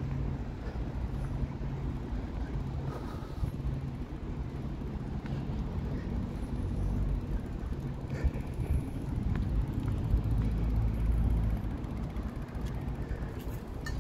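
A steady low engine hum with a constant low rumble under it, swelling louder about ten seconds in.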